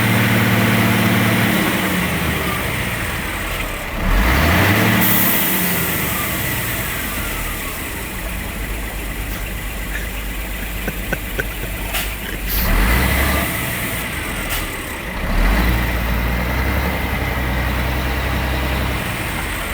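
Scania R-420 truck's six-cylinder diesel engine idling and being revved several times, its pitch climbing and falling back, while the truck struggles for grip on ice. A short hiss comes about five seconds in.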